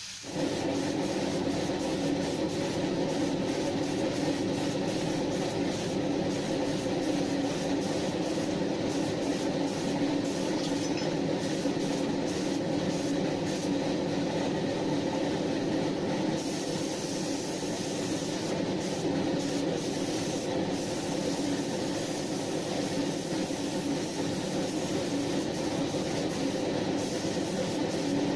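Gravity-feed spray gun spraying pure thinner in a steady hiss, fading the edge of the new clearcoat into the old paint, over the continuous drone of the air compressor feeding it. It starts abruptly and runs without a break.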